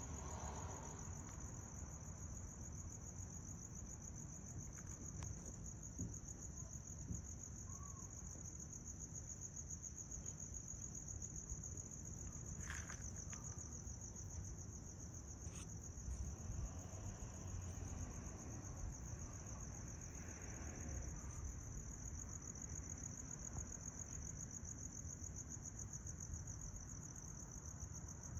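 Crickets trilling without a break in one high, steady pitch, with a low rumble underneath.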